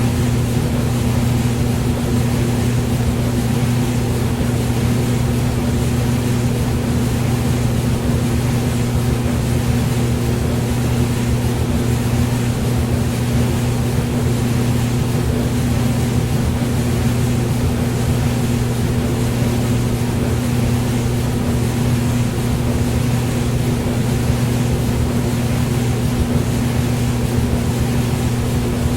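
Hair dryer running steadily: a constant low motor hum under an even rush of airflow hiss.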